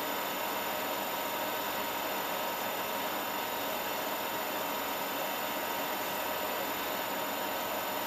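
Steady hiss of water circulating through the ice-water box of a chilled-water cooling rig, with a steady electrical hum under it.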